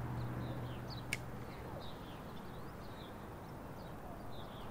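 Birds chirping on and off, short high calls repeated throughout. A single sharp click about a second in, and a low steady hum that fades out a little under two seconds in.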